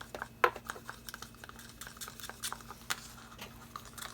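Acrylic paint being stirred in a cup, the stir stick clicking and tapping irregularly against the cup, with one louder knock about half a second in.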